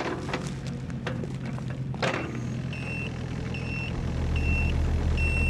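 Excavator diesel engine running, with a few sharp knocks in the first two seconds. A little past halfway its travel alarm starts, giving short high beeps a little under once a second, while the engine grows louder.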